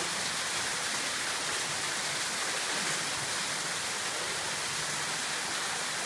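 Waterfall pouring into a rock pool: a steady, even rush of falling and splashing water.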